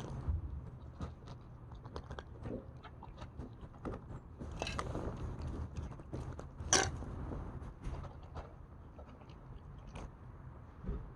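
A small pet chewing and crunching food, with irregular crisp little clicks.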